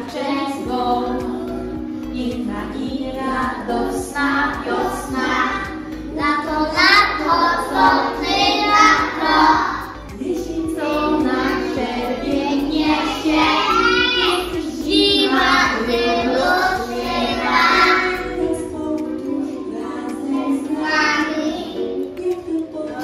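A children's song: child voices singing over instrumental accompaniment.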